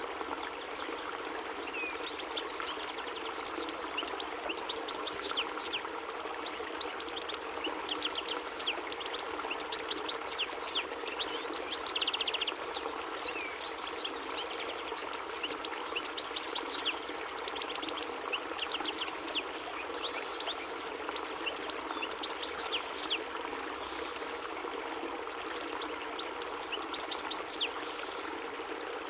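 European goldfinch singing: fast, tinkling, twittering phrases in several bursts with short pauses between them, over a steady background hiss.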